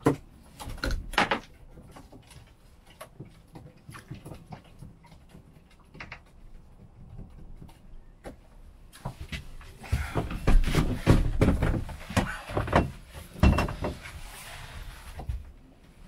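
Scattered knocks and clatter of fishing gear being handled on a small boat, with a louder stretch of low rumble and knocking from about nine seconds in.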